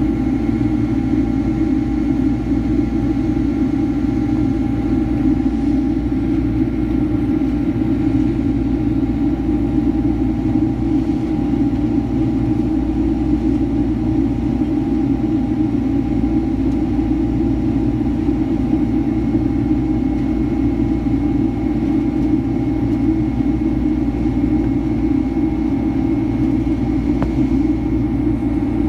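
Steady roar of a Boeing 767-300ER's jet engines and airflow heard inside the cabin during the climb after takeoff. A few faint, steady whining tones sit above the roar.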